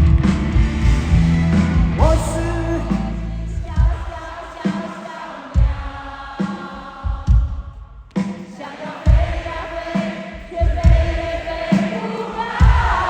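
Live rock band playing a ballad, with a regular drum beat under sustained singing voices; the music thins out briefly about eight seconds in.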